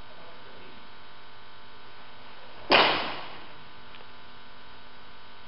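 A steady electrical hum, with one sharp crack-like smack about halfway through that rings out briefly in the hall.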